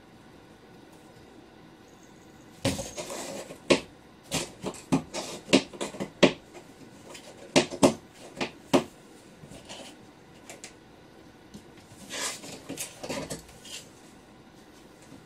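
A cat scratching and pawing at a cardboard box, a string of irregular scrapes and knocks on the cardboard in two bouts, the second shorter, starting about ten seconds after the first ends.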